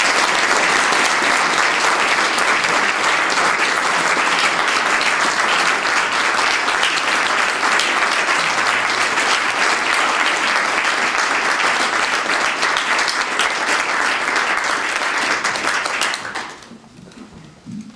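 Audience applauding steadily, then dying away about sixteen seconds in.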